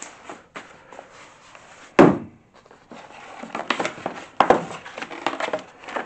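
Cardboard packaging being handled during unboxing: box flaps opened and contents shifted, with a sharp knock about two seconds in and then a run of short rustling and scraping noises.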